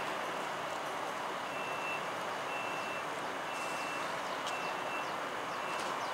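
Short high electronic beeps, about one a second, typical of the passenger coaches' door-closing warning before an Intercity train departs, over the steady noise of the standing Newag Griffin electric locomotive.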